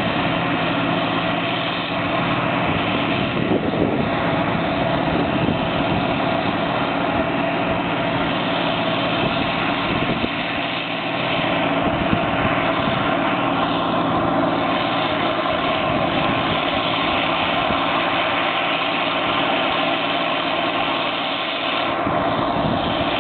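John Deere CTS combine harvester running steadily under load while it cuts and threshes grain: a continuous, even mechanical drone of the engine and threshing machinery.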